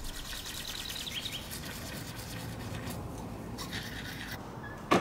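Toothbrush scrubbing teeth in quick strokes, with birds chirping, and a single sharp click near the end.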